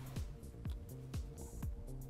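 Background electronic music with a steady beat, a kick drum about twice a second.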